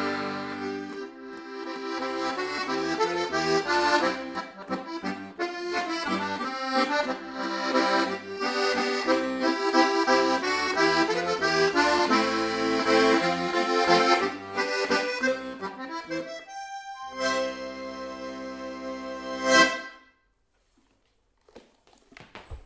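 Bergflødt G/C two-row melodeon (diatonic button accordion) playing a waltz melody over bass-and-chord accompaniment, closing on a held final chord that stops abruptly about three seconds before the end. A few faint knocks follow in the quiet.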